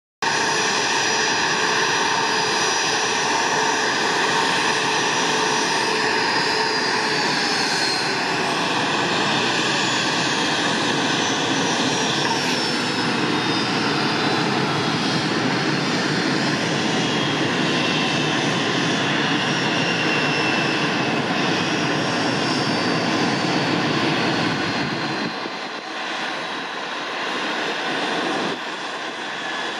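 Bombardier Challenger 604's rear-mounted GE CF34 turbofans running down at engine shutdown: a steady jet noise with whining tones that slide down in pitch several times. About 25 s in the low rumble falls away and the sound gets quieter.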